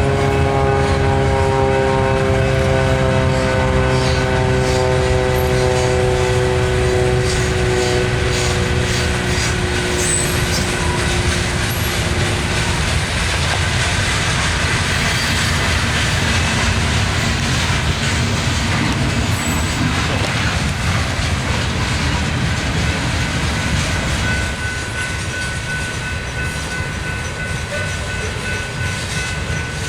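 Freight train led by rebuilt EMD diesel locomotives passing: the air horn sounds a chord that slides down in pitch and fades out over the first dozen seconds, over the steady rumble of the engines and the clatter of wheels on rail joints. Near the end the rumble drops a little and a thin steady squeal comes in.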